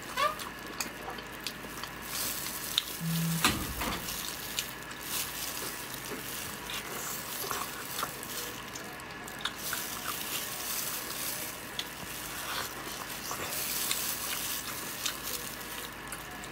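Close-miked eating sounds: wet chewing and tearing of a sauce-glazed grilled eel, with many small crackling clicks and smacks over a steady hiss, and one louder knock about three and a half seconds in.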